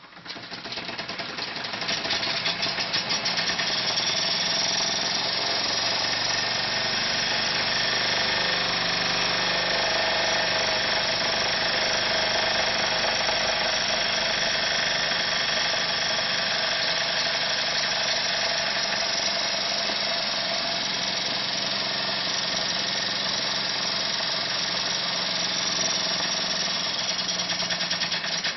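Wilesco D16 toy steam engine running fast under steam: a rapid, steady chuffing with hiss, building up over the first two seconds and then holding an even speed.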